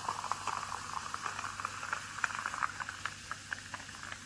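Freshly carbonated soda poured from a plastic SodaStream bottle into a glass mug over ice: a fizzing pour with a dense patter of small crackling pops that thins out toward the end.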